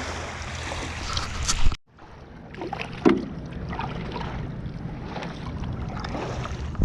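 Wind on the microphone over water lapping around a stand-up paddleboard, with a few light knocks. The sound drops out for a moment about two seconds in.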